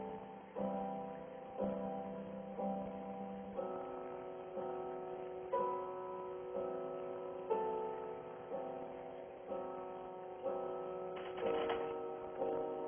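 Slow piano music: a note or chord struck about once a second and left to fade, with a brief noise near the end.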